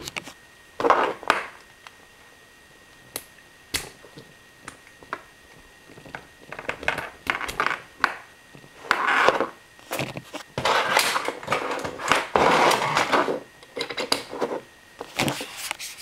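Handling noise of plugs and cables being fitted together on a desk: scattered clicks and knocks, then a run of rustling and scraping with more clicks in the second half.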